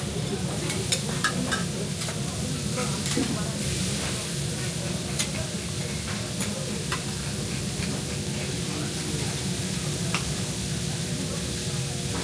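Food sizzling on a hot teppanyaki griddle, a steady frying hiss, with sharp clicks of metal utensils several times throughout.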